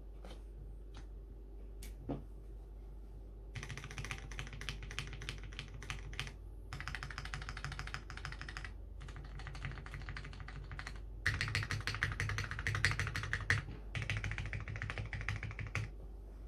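Mechanical keyboard with linear Cherry MX Black switches on an aluminium plate and GMK ABS keycaps being typed on. A few lone keystrokes come first, then fast runs of typing broken by short pauses, loudest a little past the middle.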